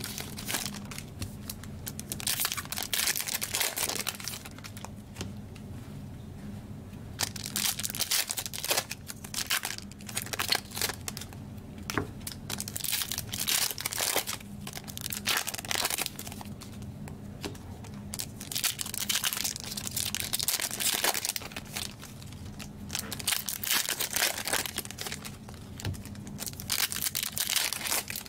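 Plastic trading-card pack wrappers being torn open and crinkled by hand, in irregular bursts with brief lulls.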